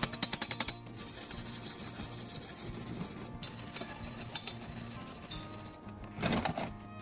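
A rapid hammering power tool stops just under a second in, followed by steady rasping of a tool working metal, with a louder short scrape about six seconds in.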